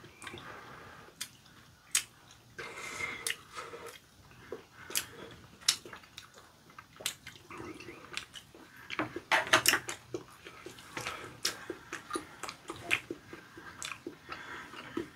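Two people eating curry rice: close-up wet chewing and mouth sounds, broken by sharp clicks, with a denser run of loud clicks about nine to ten seconds in.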